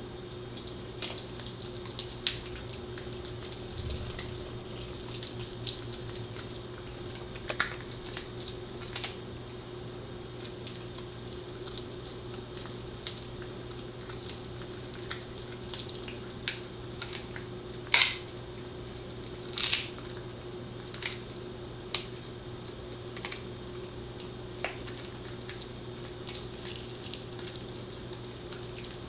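A Pembroke Welsh Corgi gnawing a cow tail wrap chew (dried cow tail wrapped in its own skin): irregular clicks and crunches of her teeth on the chew, with two louder crunches about eighteen and twenty seconds in. A steady low hum runs underneath.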